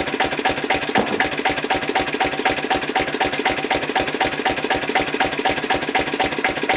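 Lister CS single-cylinder stationary diesel engine running steadily at its slow governed speed, a regular beat of about five firing strokes a second.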